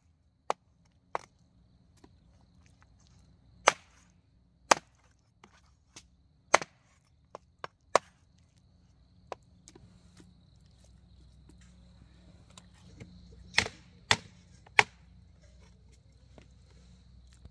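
Knife chopping on a wooden cutting board: about a dozen sharp, irregular chops with pauses between them, and a quicker run of three near the end.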